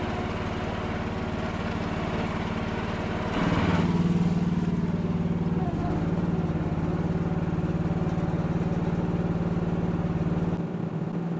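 Kymron micro excavator's 14 hp Briggs & Stratton engine running steadily as the machine travels on its tracks at full speed. About three seconds in the engine grows louder, and near the end the deepest part of the sound drops away and it becomes quieter.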